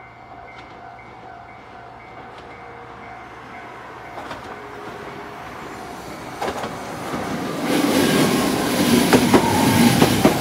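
Hiroshima Electric Railway 3900-series articulated tram, refitted with a Toyo Denki hybrid-SiC VVVF inverter, approaching and rolling past. Its wheel and motor noise grows much louder from about seven seconds in, with an inverter whine that falls in pitch as it slows and a few sharp wheel clacks over the rail joints near the end. Before it arrives, a steady chiming signal tone is heard and stops about six seconds in.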